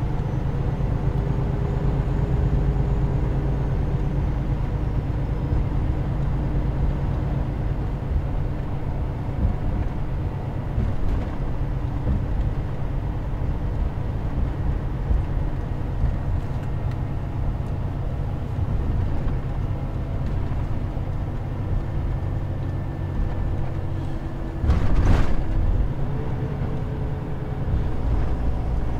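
Semi-truck engine running steadily, heard from inside the cab as a low rumble. A short, loud hiss about 25 seconds in.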